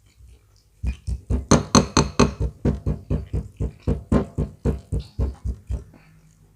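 A rapid, even run of about twenty loud thumps, roughly four a second, starting about a second in and stopping near the end.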